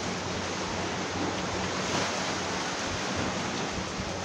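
Steady rush of sea waves washing on the shore, mixed with wind.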